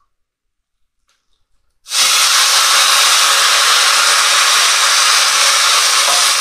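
Near silence, then about two seconds in a sudden, loud, steady hiss: a ladle of stock sizzling as it hits the hot pan of risotto rice.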